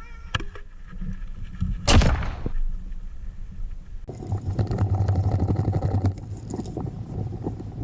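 A sharp bang with a short hiss trailing off about two seconds in. From about four seconds on, continuous rattling and scraping over a low rumble.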